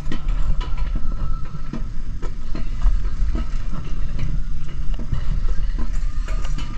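Mountain coaster cart rolling fast down its steel rail track: a steady low rumble from the wheels, with irregular clacks and knocks as they run over the track.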